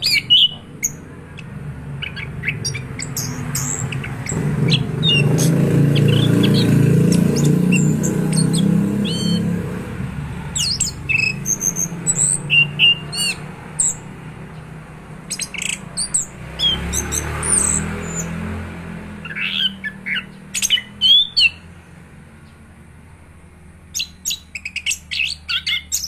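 Orange-headed thrush (anis kembang) singing in short bursts of quick, sharp chirps and whistles, with pauses between phrases. A low background noise swells for several seconds in the first half and again briefly past the middle.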